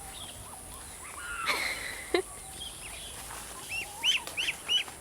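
A small bird chirping: a quick run of short, high chirps, about four a second, in the last second or so. A brief rustle and a sharp click come about one and a half to two seconds in.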